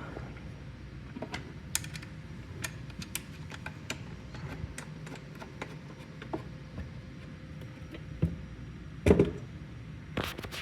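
Irregular light clicks and taps of small parts being handled, over a low steady hum, with a louder knock and clatter about nine seconds in.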